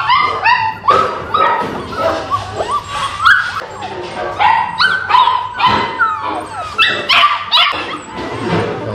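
A litter of six-week-old golden retriever × English cocker spaniel puppies yipping and whining. Many short, high-pitched cries rise and fall in pitch, several a second, overlapping one another.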